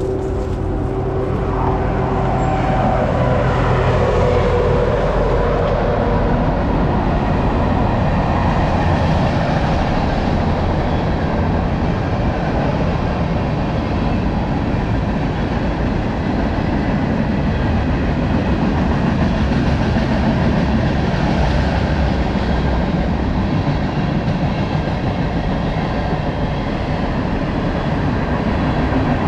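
Steady rumbling wind and rolling-tyre noise from a bicycle ride, picked up on a handlebar or helmet camera's microphone.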